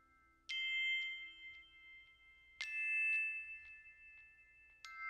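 A metal bell or chime struck three times, about two seconds apart. Each strike rings on with clear high tones, and each is at a slightly different pitch.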